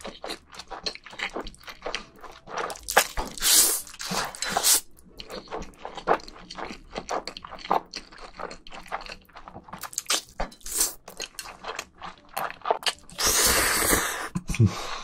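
Close-miked wet chewing and lip-smacking of jajangmyeon (black bean sauce noodles), with long slurps of noodles about three and a half seconds in and again near the end.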